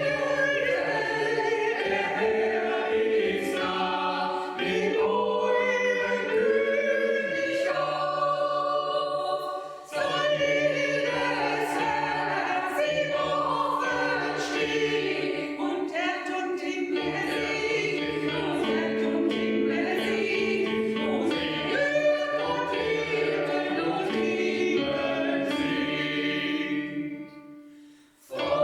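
Choir singing in parts, with a brief break about ten seconds in and a short pause near the end.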